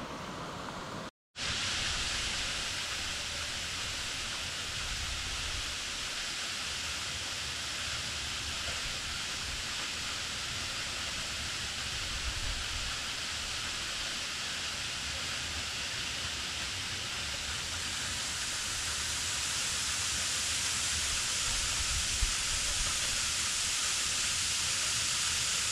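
Steady rushing of falling water from a waterfall: an even, hissing noise strongest in the upper range, with a low rumble underneath. It cuts out for a moment about a second in.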